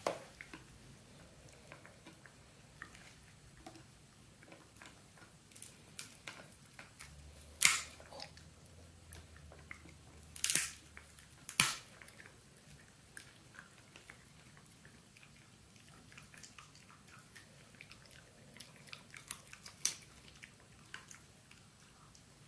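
Italian greyhound chewing a dried pig ear: scattered small crunches and crackles, with a few louder sharp cracks, the loudest three close together about a third of the way through.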